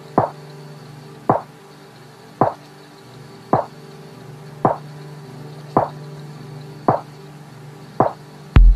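Opening of a deep house track: a sustained low synth pad with a short, dripping percussion hit about once a second, and a kick drum coming in near the end.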